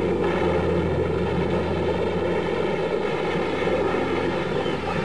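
Steady jet aircraft engine noise over a low, steady hum, with no let-up or swell.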